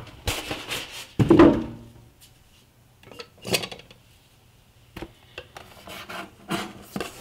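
A cardboard box and a paper booklet are handled and slid on a granite countertop, with a loud rub and knock about a second in. Near the end come quieter scattered taps and scrapes as a blade works at the box's plastic wrap.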